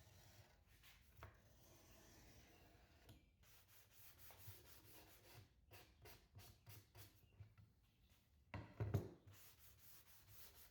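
Faint hand scraping and rubbing along a plywood panel's edge as the overhanging edge banding is trimmed and cleaned up, in many short strokes, with one louder knock about nine seconds in.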